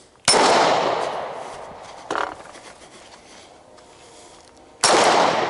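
Two pistol shots about four and a half seconds apart, each a sharp crack with a long fading tail. A fainter sharp sound follows the first shot about a second and a half later.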